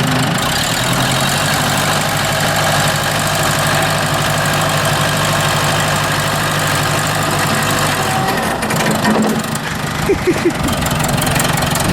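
An engine running steadily, its pitch stepping up about a second in and holding, then dropping back about eight seconds in, as a vehicle pulls on a chain to straighten a bent rear suspension. A few short knocks come about ten seconds in.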